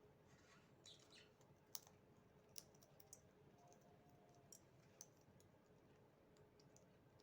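Faint, scattered sharp clicks of an Alexandrine parakeet's beak cracking sunflower seed shells, with a faint high chirp-like sound about a second in.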